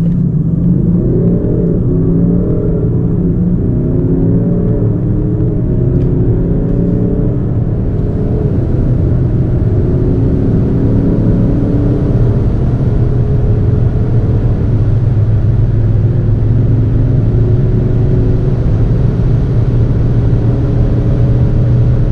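Large turbodiesel SUV engine accelerating hard at full throttle toward 200 km/h. Its pitch climbs and drops back with each upshift, in quick arcs over the first several seconds and then in longer, steadier pulls.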